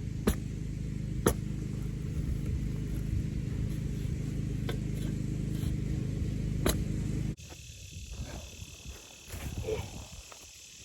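An engine running steadily with a low rumble and a few sharp clicks over it, cutting off suddenly about seven seconds in, leaving a quiet outdoor background.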